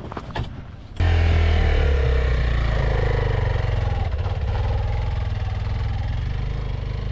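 Motorcycle engine running with a steady low rumble, starting abruptly about a second in.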